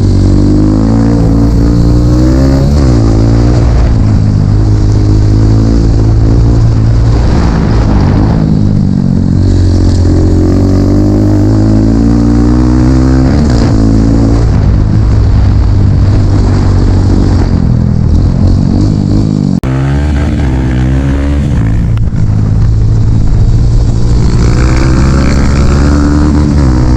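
Dirt bike engine running loud and close, its pitch rising and falling again and again as the throttle is opened and closed. A brief dip in the sound comes about two-thirds of the way through.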